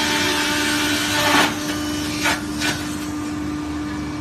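ENERPAT wood sawdust machine running: a steady motor hum under a loud rushing hiss as sawdust is blown out of the chute. The hiss drops away about a second and a half in, leaving the hum and two brief noises a little later.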